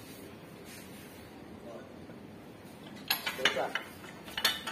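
Metal tools and a metal well pipe clinking and knocking as men work the pipe string at a deep-well head, with a quick run of sharp clinks about three seconds in and a few more near the end.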